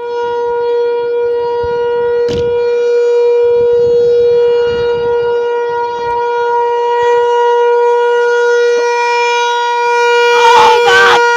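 ASC T-128 outdoor warning siren sounding its steady alert signal: one loud tone held at a single pitch with a rich stack of overtones. Near the end, louder wavering higher tones come in over it.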